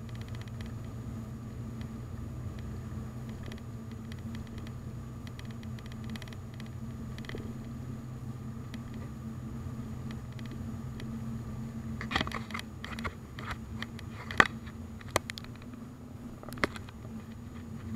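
Car cabin drone from engine and tyres on the road, steady and even, picked up by a dashcam inside the car. From about twelve seconds in, a scatter of sharp clicks and knocks sounds over it, one loud one a little after the middle of that stretch.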